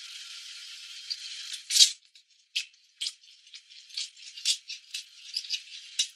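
A thin, steady hiss, then a dry rattling in short, irregular shakes, the loudest coming just under two seconds in.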